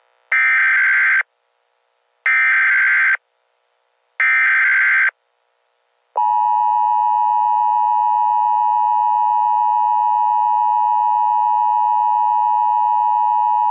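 Emergency Alert System header: three short bursts of SAME digital data tones, about a second each with a second's gap between them. From about six seconds in comes a long, steady attention tone. This sequence is the signal that opens an emergency alert before the spoken message.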